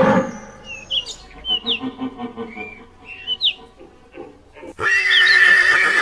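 Scattered short bird chirps over a quiet background, then near the end a loud, sustained animal call begins abruptly.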